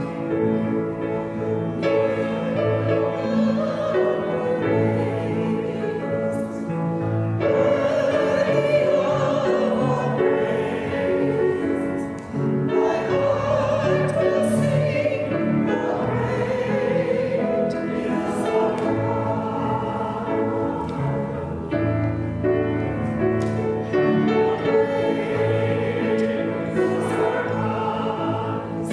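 A worship song sung by a group of voices over instrumental accompaniment, with held chords under the melody.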